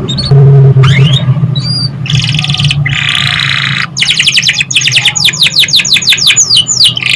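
Domestic canary singing: buzzy rolling trills, then from about four seconds in a fast run of downward-sweeping whistled notes, about five a second. A steady low hum runs underneath.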